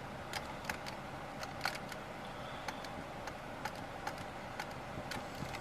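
A run of light, sharp clicks, roughly two a second and not quite evenly spaced, over the steady hum of the 2011 Hyundai Elantra's 1.8-litre engine idling, heard from inside the cabin.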